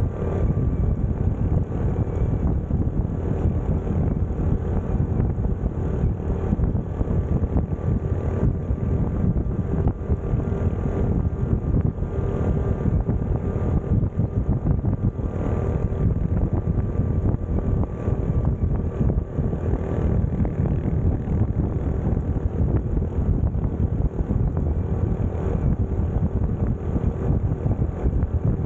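Honda CT125's single-cylinder four-stroke engine running steadily at cruising speed, with wind rushing over the microphone.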